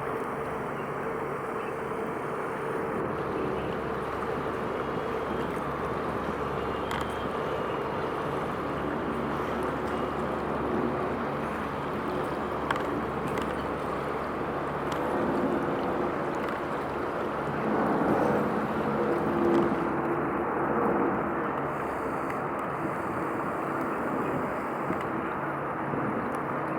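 Steady engine drone from a vessel on the water, with wind and water noise mixed in. Some shifting engine tones and slight swells come about two-thirds of the way through.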